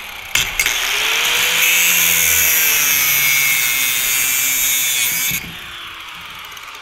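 Handheld angle grinder grinding a steel bracket, a loud steady hiss that stops about five seconds in. The disc is then lifted off the metal and the motor winds down, its pitch falling.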